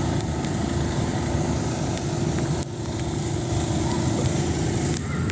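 A motor running steadily with a low rumble and a steady hum, the hum cutting off near the end.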